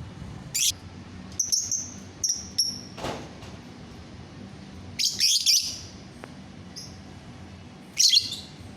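Lovebird chirping in short, shrill, high-pitched calls spaced irregularly, with a quick run of calls about five seconds in and another near the end.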